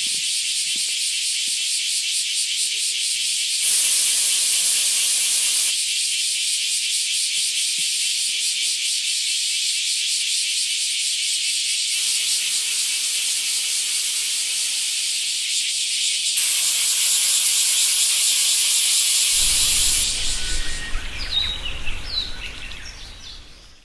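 Cicadas droning in a shrill, rapidly pulsing buzz. It jumps louder and softer several times, then fades away over the last few seconds with a few short chirps.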